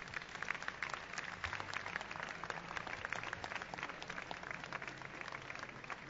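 A crowd applauding, many hands clapping unevenly.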